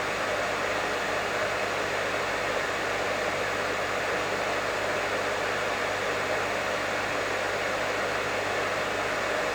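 Professional hair dryer running steadily: an even rush of blown air with a low hum beneath it.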